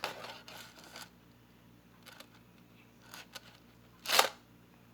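Faint clicks and light rattling of a small metal chain necklace being handled. About four seconds in there is a short, louder hissy burst.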